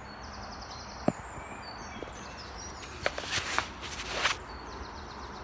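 Birds singing in the surrounding woodland, with high trills and short whistles repeating. There is one sharp click about a second in, then brief rustling and scraping between about three and four seconds as the climber shifts against the tree bark.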